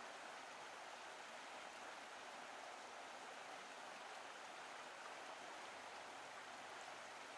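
Faint, steady running water of a rainforest brook.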